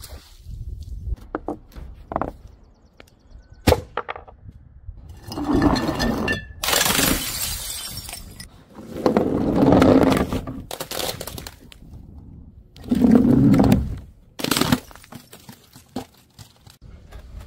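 Filled balloons and plastic bottles dropped onto paving, bursting and splashing on impact: about six separate sudden hits, some sharp cracks and some longer wet splashes.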